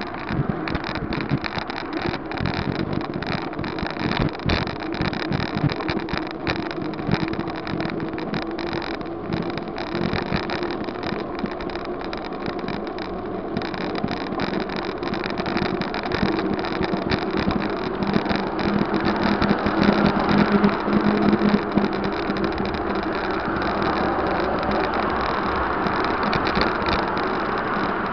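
Wind noise on the microphone of a camera mounted on a moving bicycle, with car traffic passing on the road alongside. It grows louder in the second half.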